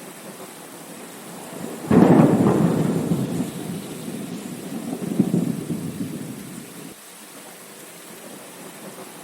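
Heavy rain falling in a steady hiss. A clap of thunder breaks in sharply about two seconds in and rumbles for about five seconds, swelling again midway before fading back to the rain.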